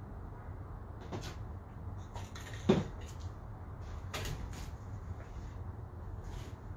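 A few light knocks and clicks of things being handled, with one louder thump about two and a half seconds in, over a steady low rumble.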